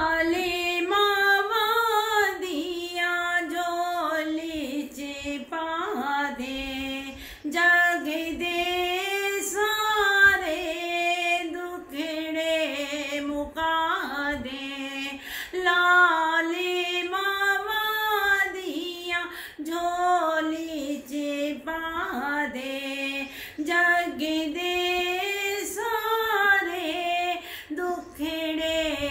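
A woman singing a Punjabi naat solo and unaccompanied, in long ornamented phrases with brief breaths between them.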